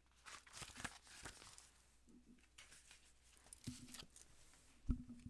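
Paper rustling as the pages of a paperback book are flipped through, in faint scattered bursts, with a soft thump near the end.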